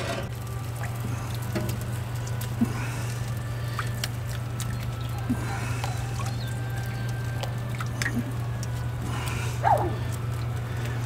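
Light clicks and knocks of a metal pot and a sauce-soaked cloth mop handled at a smoker grate, with a faint patter of liquid as the ribs are dabbed near the end, over a steady low hum.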